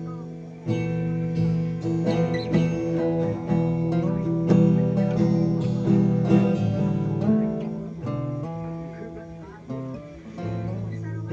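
Acoustic guitar played in chords starting on E, with single notes moving above the held chords. Near the end there is a short break, then a chord rings again.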